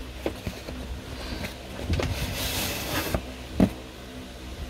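Cardboard box being opened by hand: scattered light knocks and handling, a scraping slide of cardboard about two seconds in that lasts about a second, then a sharp knock.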